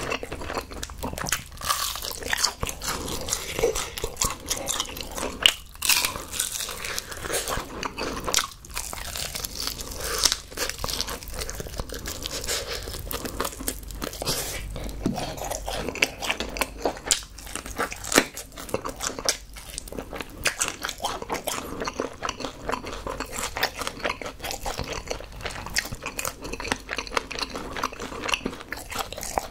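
Close-miked biting, crunching and chewing of crispy Honey Combo fried chicken, an irregular run of crackles with a few louder crunches along the way.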